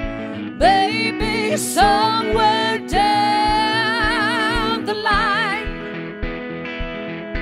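Live folk-rock duo: a woman sings a high, held melody with wide vibrato over electric guitar chords and a steady low kick beat about twice a second. The voice drops out about five and a half seconds in, leaving the guitar and beat.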